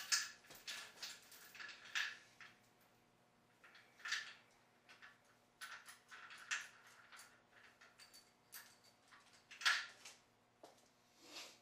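Steel lifting chain clinking and rattling in irregular bursts, with a few sharper knocks, as it is handled around an engine block hanging from it. A faint steady hum lies underneath.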